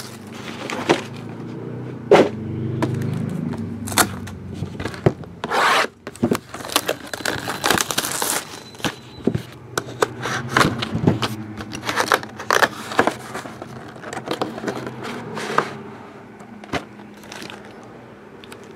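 Handling of 8x10 photographs and their packaging on a table: scraping, rubbing and rustling with many sharp taps and clicks, quieter near the end.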